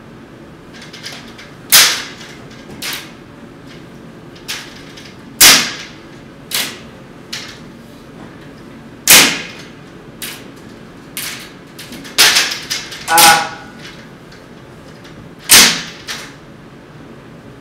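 An irregular series of sharp snaps or slaps, more than a dozen, each cut short quickly, the loudest four spread a few seconds apart; one near the end has a brief ringing tone.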